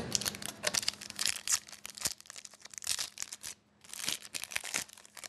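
Foil wrapper of a hockey card pack being torn open and crinkled: a run of rapid crackles, pausing briefly about three and a half seconds in.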